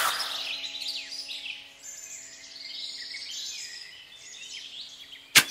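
Small birds chirping and twittering continuously over a faint steady hum, with a sharp click near the end.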